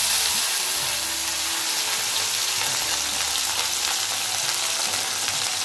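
Bhetki (barramundi) fish steaks frying in hot mustard oil in a wok, the fish freshly added. The sizzle is a little louder at first, then settles into a steady hiss.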